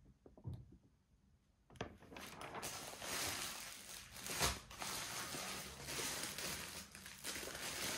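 The plastic protective sheet of a diamond-painting canvas rustling and crinkling as it is handled. It starts about two seconds in, with a few sharper crackles midway.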